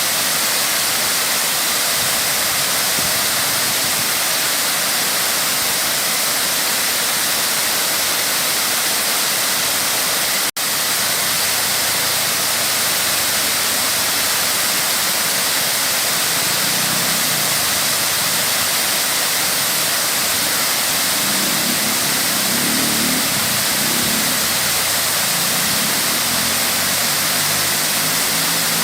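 Waterfall: water falling with a loud, steady rush, cut off for a split second about ten seconds in. A fainter low sound comes and goes under it in the second half.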